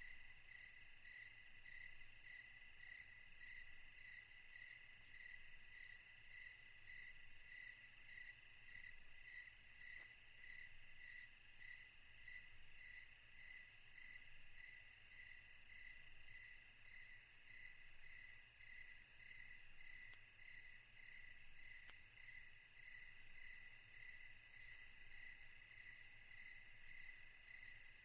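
Faint insects chirping steadily, a regular pulse about twice a second, over low hiss.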